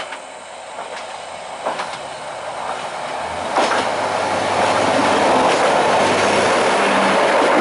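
Hojo Railway Flower 2000 single-car diesel railcar passing close by: engine running and wheels clicking over rail joints, getting louder about three and a half seconds in as the car draws level and then staying loud.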